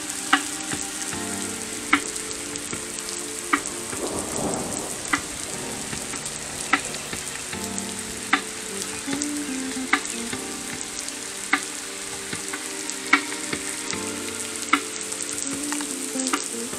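Heavy rain falling in a steady hiss, with a sharp tick repeating about every second and a half.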